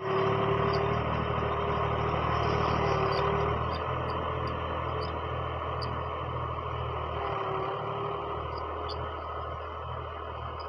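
Fiat 480 tractor's diesel engine running steadily under load while pulling a cultivator through the soil. It grows a little fainter after about three and a half seconds as the tractor moves away.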